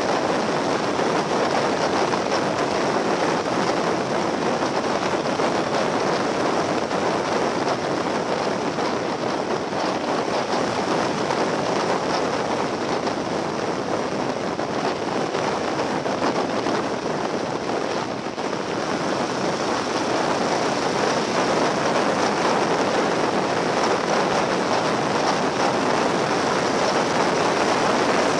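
Steady rush of wind and road noise from a Yamaha XT1200Z Super Ténéré motorcycle riding at speed, heard from behind its windscreen. The noise eases briefly about two-thirds of the way through, then returns.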